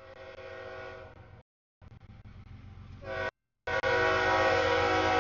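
Freight locomotive's air horn sounding for a grade crossing as the train approaches. A steady multi-note chord comes in several blasts separated by short silent breaks, the last one about two seconds in and the loudest.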